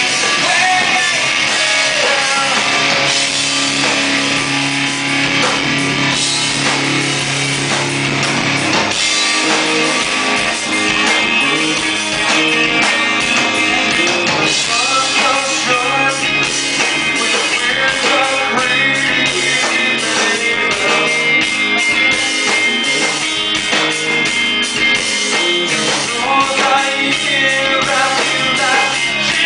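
Live rock band playing: distorted electric guitars, bass and drum kit, with singing.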